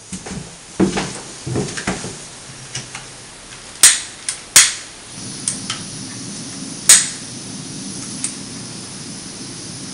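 Handling knocks at the gas-cartridge burners under a two-cylinder Stirling engine, then three sharp clicks as the burners are lit. After the clicks the lit gas burners hiss steadily; the engine is not yet turning.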